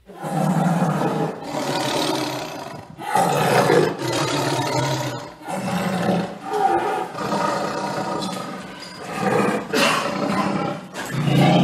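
A big cat roaring again and again, each roar about a second long with short breaks between them.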